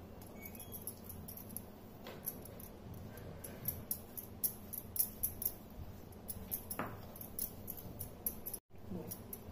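Faint, quick light ticks and soft wet dabbing as a silicone pastry brush spreads ghee paste (saata) over a sheet of rolled dough.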